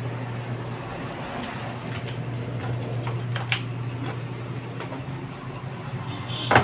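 Steady low hum, with light clicks and knocks of an AC adapter brick and multimeter leads being handled on a workbench, and a sharper knock near the end.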